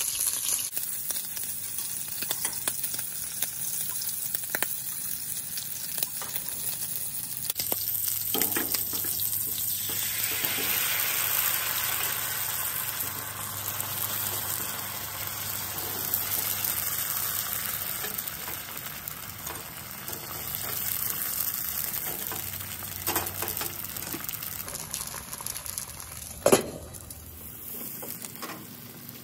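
Pork belly and shrimp sizzling in hot oil in a skillet, then bánh xèo batter frying in the pan with a louder sizzle about a third of the way in. A single sharp knock near the end.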